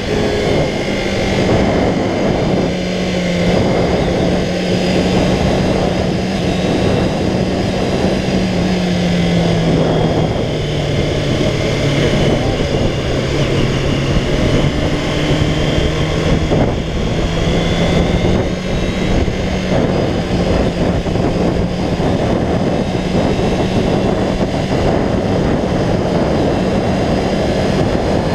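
Kawasaki ZXR 400's inline-four engine running at a steady cruise under wind rush on the helmet microphone. Its pitch drops about a third of the way in and then slowly climbs back.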